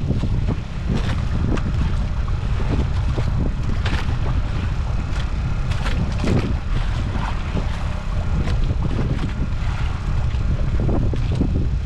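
Steady low rumble of wind and a fishing boat at sea, with wind buffeting the microphone, and scattered light clicks and knocks on top.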